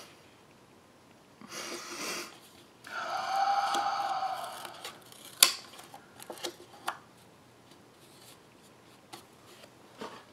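Card stock and patterned paper handled and shuffled against each other: a brief rustle, then a paper slide of about two seconds with a steady squeaky pitch, followed by a few light taps as the layers are set down.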